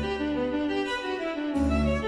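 Instrumental background music: a melody of held notes, with a deep bass note coming in near the end.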